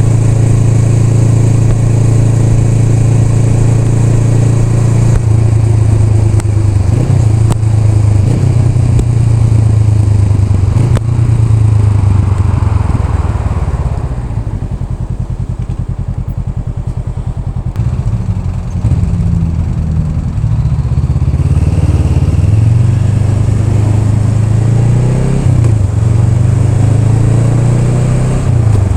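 Honda Rebel 500's parallel-twin engine running while riding. The pitch is steady for the first few seconds, then shifts. The engine goes quieter as the throttle eases off around the middle, then picks up again with rising pitch as it accelerates.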